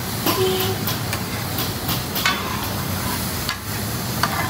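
Chopped beef liver sizzling in oil on a large flat tawa while a metal spatula stirs and scrapes through it, clicking against the pan several times.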